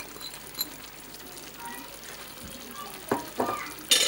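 Chicken curry simmering in a frying pan with a soft, steady sizzle as chopped red bell pepper is tipped in from a plate. A few sharp knocks sound near the end, the loudest just before it ends.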